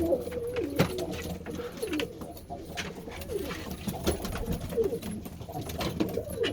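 Several domestic pigeons cooing over one another in low, wavering coos, with scattered sharp clicks.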